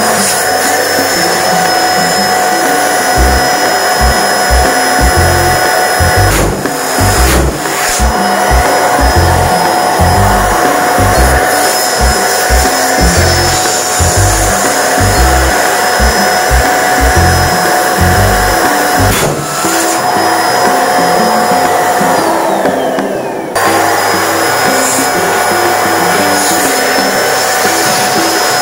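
Twin-nozzle electric balloon pump running with a steady whine as it inflates two latex balloons at once. About 22 seconds in its pitch drops away, then it cuts back in at full speed. Music plays underneath.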